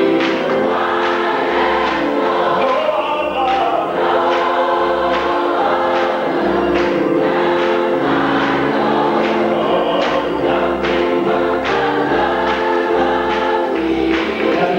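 Church choir singing a gospel song, with hand claps keeping a steady beat.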